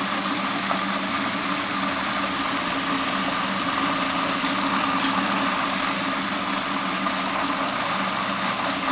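Countertop food processor motor running steadily with an even hum, puréeing a wet dressing mixture of strawberries, onion, garlic and vinegar.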